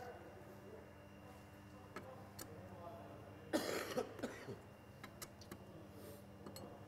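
A man coughing once, briefly, about halfway through, over faint scattered clicks and taps of small engine parts being handled.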